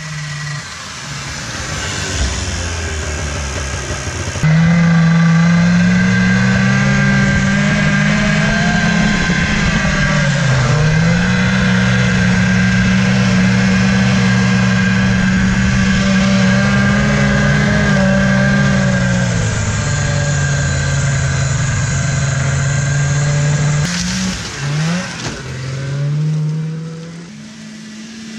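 1981 Yamaha Enticer 340 snowmobile's two-stroke engine running under way. For most of the time it is heard from the rider's seat, loud and holding steady revs, with a brief let-off and pick-up about ten seconds in. Near the end it is heard from a distance as the sled comes back toward the camera.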